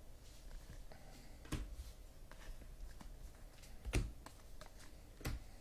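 Trading cards and packs being handled on a table: faint rustling and scattered soft taps and clicks, with three louder knocks.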